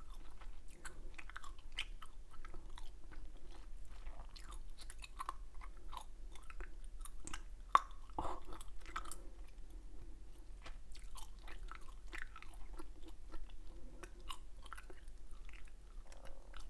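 Close-miked chewing of soft Hubba Bubba bubble gum: a string of small, irregular mouth clicks, with one much sharper, louder click about halfway through.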